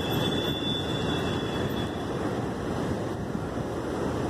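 Steady rushing noise of wind on the microphone mixed with street traffic.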